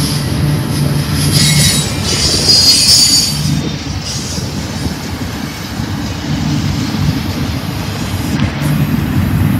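Double-stack intermodal freight train's well cars rolling past with a steady low rumble of steel wheels on rail. A high wheel squeal rises over it about one to three seconds in, then fades.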